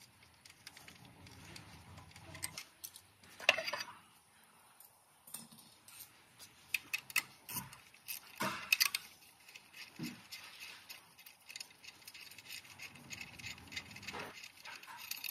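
Hand work on the starter's wiring under a 2015 Ram 1500: quiet, irregular clicks and light rattles of plastic clips and metal as a gloved hand grips and pulls the wiring loom, with sharper clatters about three and a half seconds in and around eight and a half seconds in.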